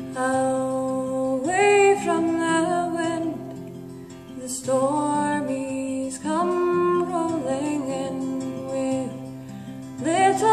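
A woman singing a slow folk song to her own acoustic guitar, in long held phrases with short breaks between them.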